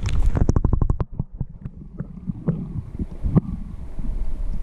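Water splashing in quick strokes as the camera is plunged into the lake, then muffled underwater sound with scattered clicks and knocks while a grayling is held below the surface for release.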